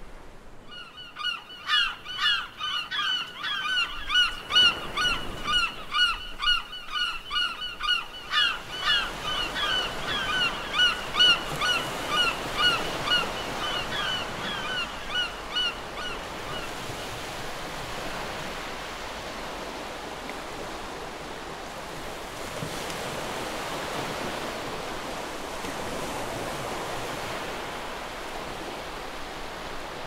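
A flock of birds calling in quick, repeated honking notes for about the first half, over ocean surf. The calls stop about halfway through, leaving the steady wash of the waves.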